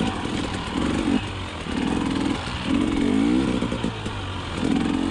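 Single-cylinder two-stroke engine of a 2020 KTM 300 XC TPI dirt bike, revving up and dropping back in about four short throttle bursts.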